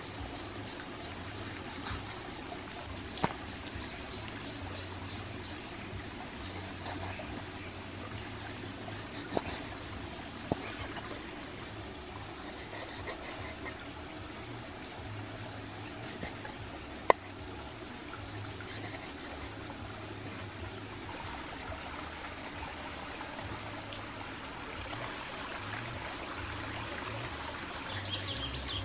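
Steady high-pitched drone of insects, with a few sharp knocks of a big kitchen knife against a wooden cutting board as raw pork is sliced, four in all, the loudest about two-thirds of the way through.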